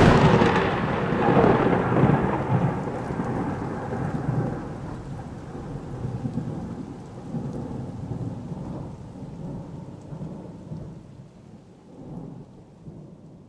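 A loud thunderclap at the start, then thunder rumbling on and slowly fading out over about thirteen seconds.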